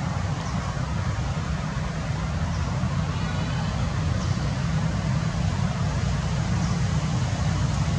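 Steady outdoor background noise: a low rumble with an even hiss over it and a few faint high ticks.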